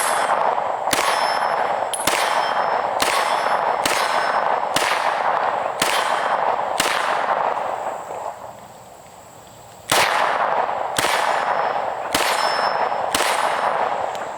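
Smith & Wesson Competitor-series 9mm pistol fired in a steady string of about a dozen shots, roughly one a second, with a pause of about three seconds midway. Each shot leaves a ringing tail.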